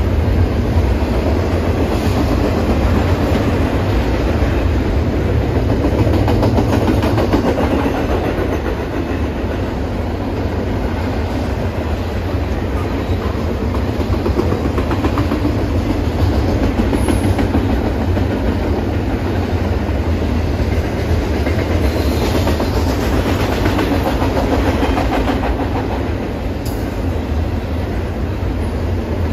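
Freight train cars rolling past, the wheels clicking steadily over the rail joints with a continuous low rumble.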